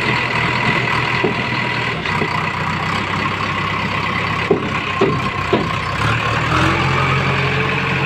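JCB 3DX backhoe loader's diesel engine running under load as the front bucket works a mud pile, with a steady whine over the engine. Three short knocks come a little past halfway, and the engine note deepens and strengthens near the end.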